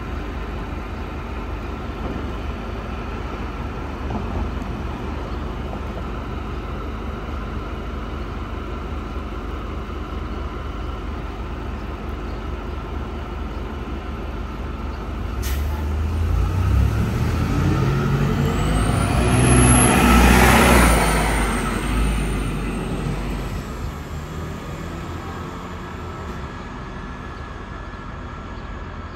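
Diesel transit bus (Gillig Phantom) idling with a steady low rumble. About halfway through comes a short sharp hiss of air, then the engine revs up with a rising whine as the bus pulls away, loudest a few seconds later and then fading.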